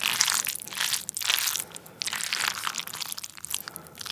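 A wooden spoon mixing a heap of canned tuna and mayonnaise in a ceramic bowl. It makes a dense run of small wet, sticky squelches and scrapes, with a short pause about halfway through.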